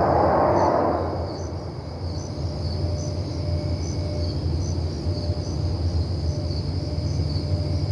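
A loud roar from the sky fades out about a second in. Crickets then chirp in an even pulse over a steady low hum.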